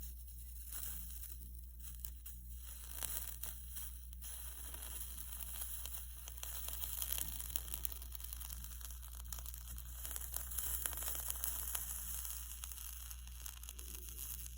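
Soldering iron melting 60/40 solder onto fluxed copper foil, with a crackling sizzle as the flux burns off, busiest in the second half. A steady low hum runs underneath.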